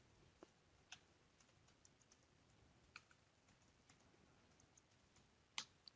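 Faint computer keyboard keystrokes: a few scattered clicks, the loudest near the end.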